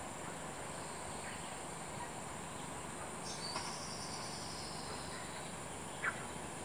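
Steady high-pitched insect drone. A faint, drawn-out high call falls slowly from a little after three seconds, and a short sharp chirp comes about six seconds in, the loudest moment.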